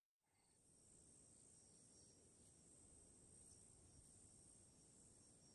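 Near silence, with a faint steady high-pitched insect chirring.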